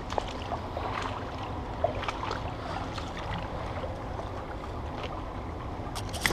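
Shallow river water running steadily over stones, with a few scattered small knocks and taps.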